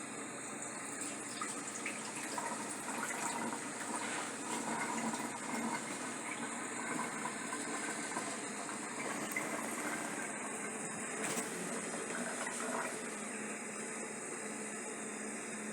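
Rinse water being poured and splashed off washed rice in a pot, swelling and easing, with a few light knocks.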